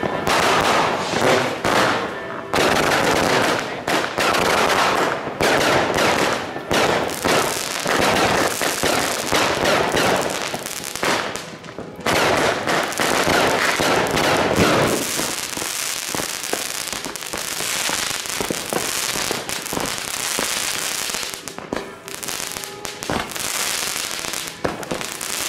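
Fireworks and firecrackers going off: a dense, continuous crackle of many overlapping bangs and pops. It thins somewhat after about fifteen seconds, leaving a hissier crackle.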